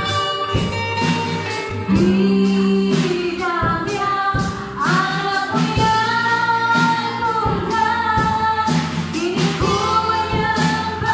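A song with a woman's voice singing over a steady beat, played as music for the dance.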